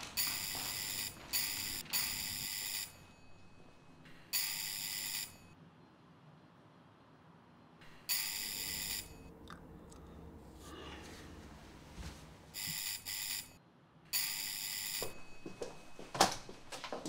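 Electric apartment doorbell rung insistently, about eight times, in short and second-long presses with pauses between. A few sharp knocks come near the end.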